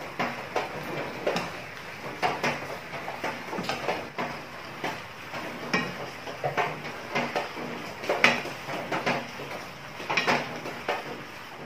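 A spoon scraping and knocking against a frying pan in irregular clicks while basting, over the steady hiss of soy and oyster sauce bubbling as it reduces and thickens around a whole chicken.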